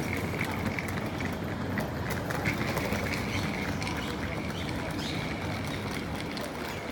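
Steady low rumble of a high-speed rail station platform, with short high chirps repeating throughout.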